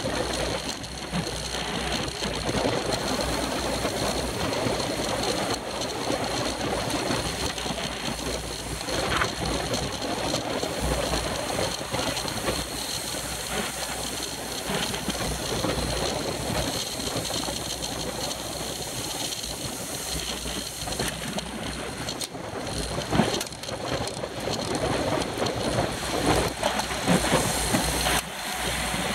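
Steady rushing wind noise over a bike-mounted action camera's microphone, with road and tyre noise from a pack of racing bicycles at speed; it gets gustier near the end.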